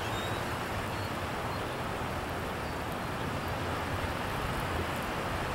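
Steady rushing noise of wind and choppy lake water, with a fluctuating low rumble underneath.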